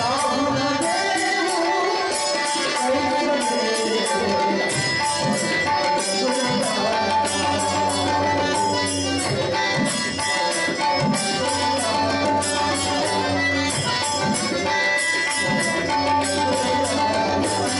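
Instrumental interlude of a Marathi bhajan: harmonium playing the melody in held reed tones, over a steady rhythm on a hand drum and small hand cymbals.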